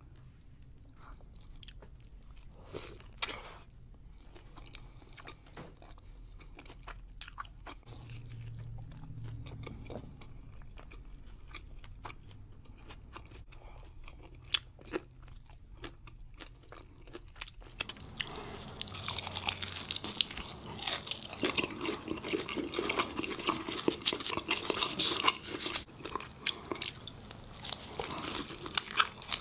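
Close-miked biting, crunching and chewing of crispy fried birria tacos. At first there are scattered crisp crunches over quiet chewing; about 18 seconds in the crunching becomes much denser and louder, from a second eater.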